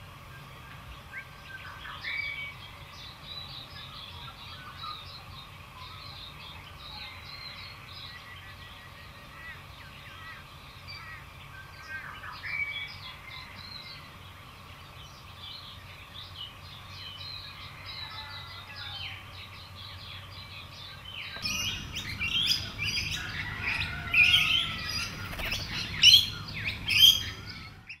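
Faint, scattered bird chirps, then about three-quarters of the way through a laughing kookaburra breaks into its loud, cackling laugh, a dense run of calls that builds to several loud peaks near the end.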